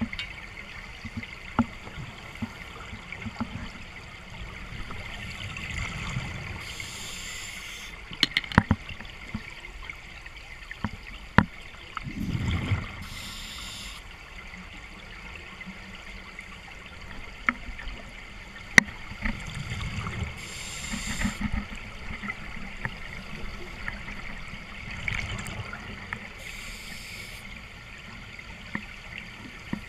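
Water trickling and dripping in a cave, with several sharp clicks or knocks and four short louder splashy bursts spaced several seconds apart.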